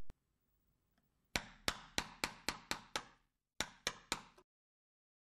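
Mallet striking a wood chisel: seven quick sharp knocks at about three a second, a short pause, then four more.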